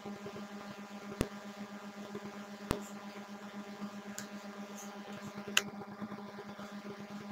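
Steady low electrical hum with three faint clicks, about a second in, near three seconds and near six seconds.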